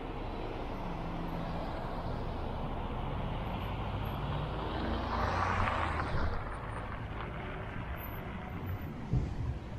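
Car driving slowly on a city street: steady engine and tyre rumble. About halfway through, another car passes close in a rising and falling rush of noise. There is a low thump near the end.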